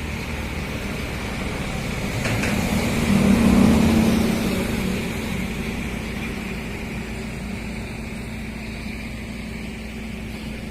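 Amphibious excavator's diesel engine running, swelling louder about three to four seconds in and then easing back to a steady run.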